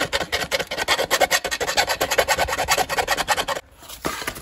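Round file rasping in rapid back-and-forth strokes inside a motorcycle swing arm's pivot bushing bore, cleaning up a hole that had been bent out of round and hammered back. The filing stops about three and a half seconds in.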